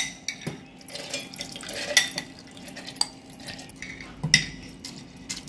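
A metal spoon clinking against a glass bowl and a steel mixer-grinder jar as soaked jowar (sorghum) grains are scooped and tipped into the jar, with a soft wet rustle of grains between several sharp clinks.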